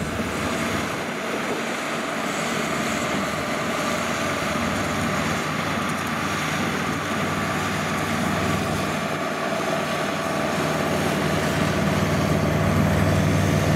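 Kubota DC70 rice combine harvester, fitted with a larger 100-series engine, running under load while harvesting: a steady engine-and-threshing drone with a steady whine. It grows louder near the end as the machine comes closer.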